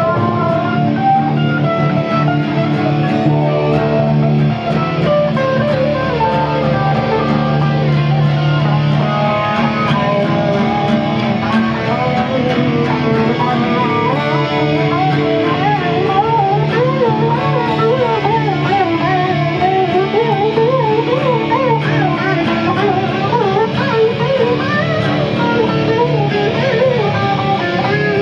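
Electric and acoustic guitars playing together in an instrumental passage. From about halfway through, a lead line with bent, wavering notes comes in over the accompaniment.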